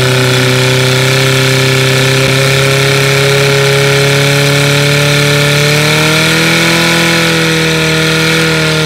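Portable fire pump engine running at high revs, pumping water through the attack hoses to the target nozzles. The note is steady, lifts slightly a little past halfway and starts to fall near the end.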